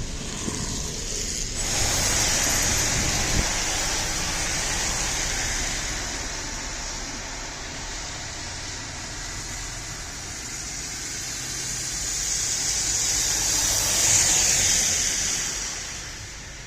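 Road traffic ambience: a steady wash of tyre and engine noise, with vehicles passing that swell up about two seconds in and again, more loudly, near the end.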